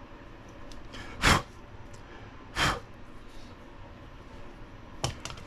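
Two short, sharp breath noises, puffs or sniffs, about a second and a half apart, the loudest sounds here. A couple of small clicks follow near the end, from handling the small plastic shock pistons and tool.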